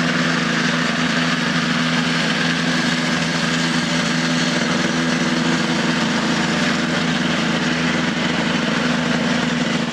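Homemade light aircraft's motorcycle engine running steadily at an even pitch.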